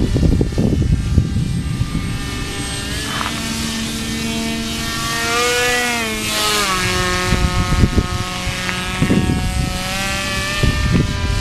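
Powered paraglider trike's engine and propeller droning overhead, the pitch dropping around the middle as it goes by. Wind buffets the microphone.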